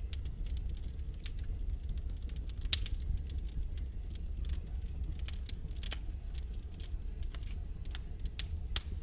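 Wood logs burning in a fireplace, crackling with irregular sharp pops, one louder pop near three seconds in, over a low steady rumble.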